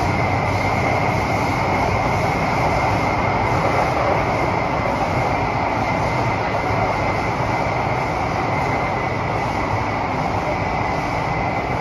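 Cabin running noise of a Kawasaki–CRRC Sifang CT251 metro train travelling through a tunnel: a steady rumble and rush of wheels on rail, with a thin, steady high tone above it.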